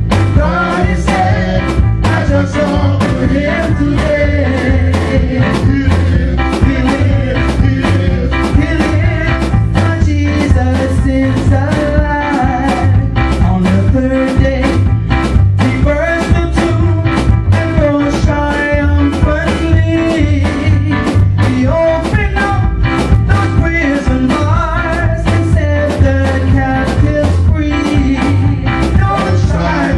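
Gospel music played by a band, with a steady drum beat, heavy bass and a wavering melody line over it.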